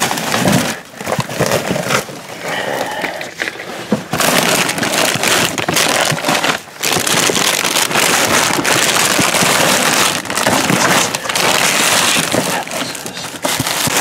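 Plastic bags crinkling and rustling as they are handled and pulled through a dumpster close to the microphone, a dense crackle that grows louder about four seconds in.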